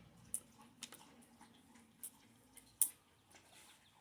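A few light clicks and taps from handling a chainsaw's chain and guide bar, the sharpest about three-quarters of the way in.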